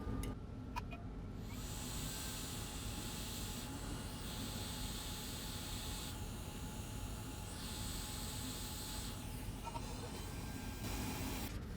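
Hot air rework station blowing a steady hiss of air over a circuit board, swelling and easing several times, after a couple of small clicks.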